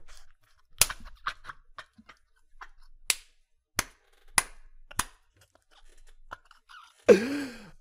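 About half a dozen sharp clicks or snaps, spaced irregularly a second or so apart. A voice comes in near the end.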